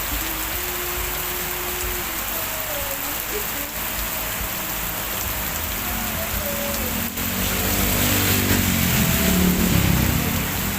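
Heavy rain falling steadily onto the ground and roof surfaces. From about seven seconds in, a motor vehicle's engine swells up and passes by, loudest near the end.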